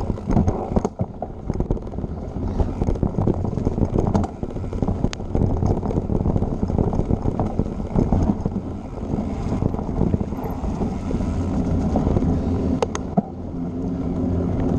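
Mountain bike riding fast over a dirt trail: a continuous rumble of tyres and wind buffeting a bike-mounted camera's microphone, with frequent sharp clicks and knocks as the bike and camera mount rattle over bumps. About 13 seconds in the sound changes to a steadier rumble.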